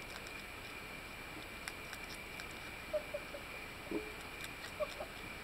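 A raccoon and a skunk feeding on a wooden deck: scattered small clicks and taps of claws and chewing, with a few short squeaks about three seconds in and again near five seconds. A steady faint high whine runs underneath.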